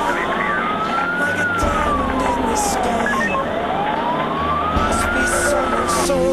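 Fire engine's wailing siren, heard from inside the cab, its pitch rising and falling slowly twice, each cycle about four seconds, with the truck's engine running underneath.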